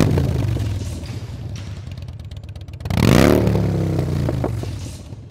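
Motorcycle engine sound cutting in suddenly with a deep, rhythmic rumble. It revs up about three seconds in, then fades away.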